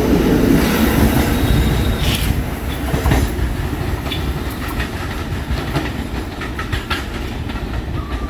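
New York City subway train running along the track, a low rumble with scattered clicks and clacks of wheels over rail joints, growing gradually quieter.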